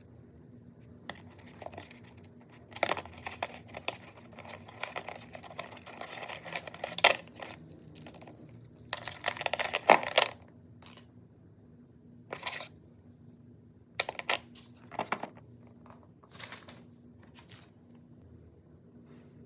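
Packaging being unwrapped by hand: bursts of plastic and paper rustling and tearing, then a few separate light clicks and knocks as the pieces are handled and set down.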